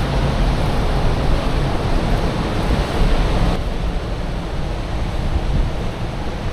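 Wind buffeting the microphone over a steady rush of choppy water. The higher hiss drops off suddenly about three and a half seconds in.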